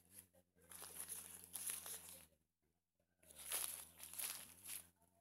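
Crinkly rustling of a diaper and its tabs being handled and folded, in two bursts of about a second and a half each.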